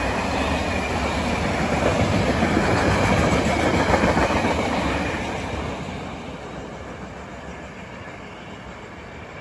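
A train passing by on the track, its rolling noise loudest about three to four seconds in, then fading over the next few seconds as it moves away.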